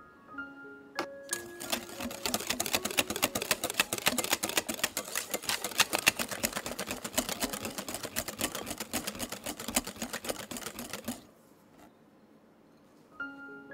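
Hand wire whisk beating a soft butter, sugar and egg batter in a glass bowl: a rapid, continuous run of clicks as the wires hit the glass, starting about a second in and stopping suddenly near the end.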